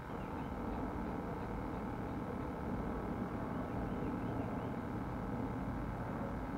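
Steady low background hum and noise with no distinct events.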